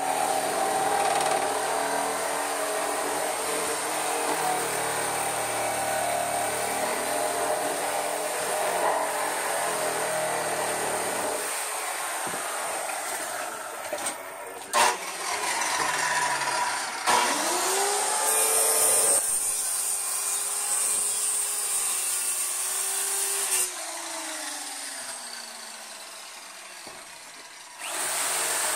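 A power tool running during demolition and carpentry work. Its motor pitch rises about two-thirds of the way through, holds, then winds down.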